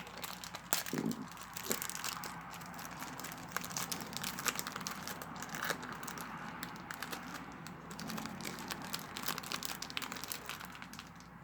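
Foil trading-card booster pack wrapper crinkling and crackling in the hands as it is worked open, with many small irregular crackles.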